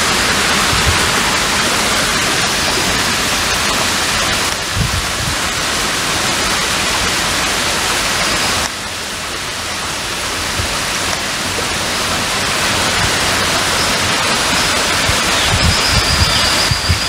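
Steady, loud rushing hiss with no pitch to it, broken by a few brief low bumps, with a thin high whistle held for about a second and a half near the end.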